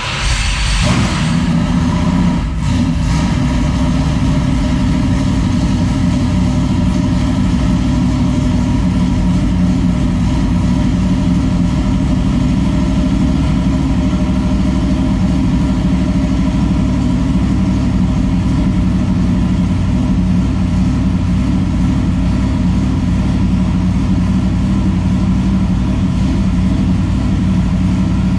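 Dirt late model race car's new carbureted V8 just fired for the first time: it catches with a brief rev in the first second, then settles into a steady, loud idle.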